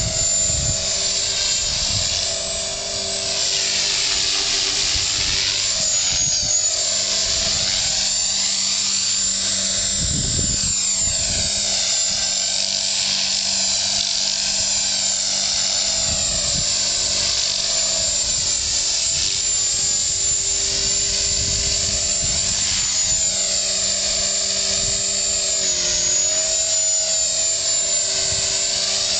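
Electric 450-size RC helicopter (HK 450, a T-Rex 450 clone) in flight: the motor, gears and rotor blades give a steady high-pitched whine, its pitch dipping briefly twice. The tone sweeps and shifts as the helicopter moves about.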